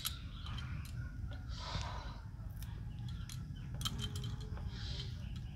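Fresh coriander being picked over by hand: small crisp snaps of stems being pinched off and rustling of the leaves, over a steady low wind rumble on the microphone.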